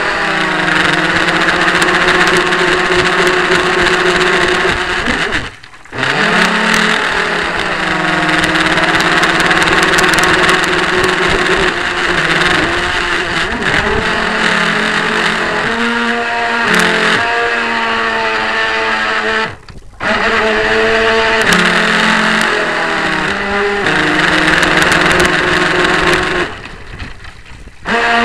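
Radio-controlled model powerboat's motor running at speed, heard through a camera mounted on the boat, with a hiss of water along the hull. Its pitch steps up and down with the throttle, and the sound cuts out briefly twice, about a fifth and two thirds of the way through, and falls away again for about a second near the end before picking up.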